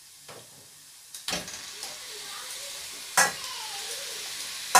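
Marinated beef mince sliding off a plate into hot oil and fried onions in a steel pot; it starts sizzling about a second in. Two sharp knocks, about two thirds of the way in and near the end, as the plate strikes the pot's rim.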